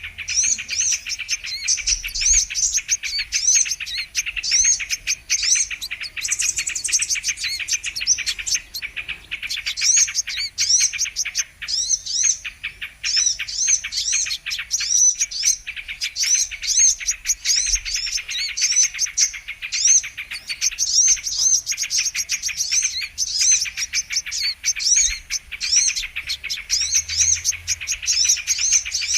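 Sunbird (kolibri kelapa) calling without pause: a dense stream of rapid, high, thin chirps and trills, as played on a bird-lure recording to call sunbirds in.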